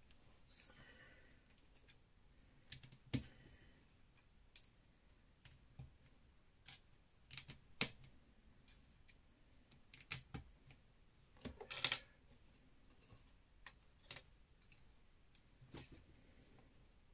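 Plastic LEGO bricks clicking and clacking as small pieces are picked up and pressed together, in scattered irregular clicks with a louder clatter of several about twelve seconds in.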